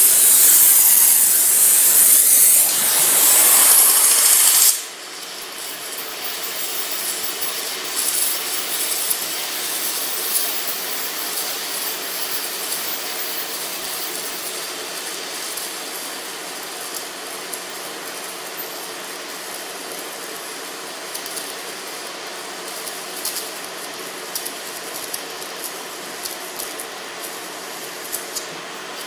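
Multiplaz 3500 steam-plasma welding torch hissing loudly for about five seconds, then dropping suddenly to a quieter steady crackle with fine ticks as the arc melts filler rod into a seam on steel plate.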